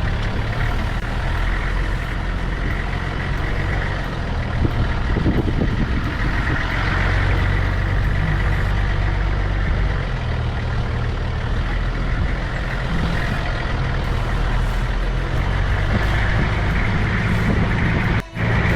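A four-wheel-drive vehicle's engine running steadily while driving over rough off-road ground, with a constant low hum and tyre and road noise. The sound drops out for an instant near the end.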